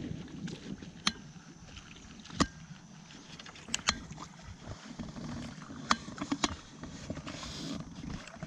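Several sharp clicks and knocks from a baitcasting rod and reel being handled in a small outrigger boat, over a low rumble of wind and water. A short hiss comes near the end.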